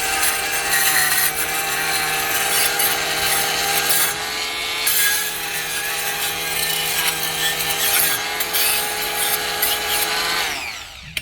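Oscillating multi-tool running steadily with a whine, its blade scraping hardened concrete off a construction tool; near the end the motor winds down and stops.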